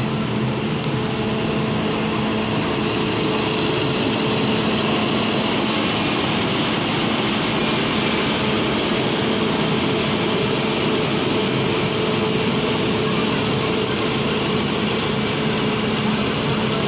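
Heavy road-construction machinery with its engine running steadily, a continuous drone with a constant hum and a broad hiss over it.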